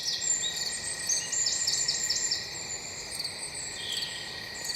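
Outdoor ambience of birds and insects: a bird gives a quick run of high, falling chirps in the first half, over a steady high insect drone.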